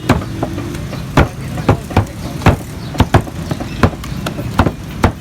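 Butcher's cleaver chopping beef, a dozen or so sharp chops at uneven spacing, about two a second, over a steady low background rumble.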